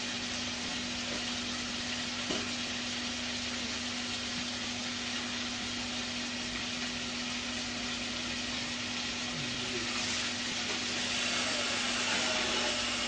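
Mekong giant catfish pieces sizzling and bubbling in spicy sauce in a wok, a steady frying hiss over a steady low hum.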